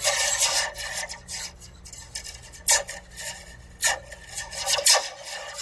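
A metal slinky's coils rasping and scraping against a plastic cup as they are handled, with a few sharper, louder scrapes about halfway through and near the end.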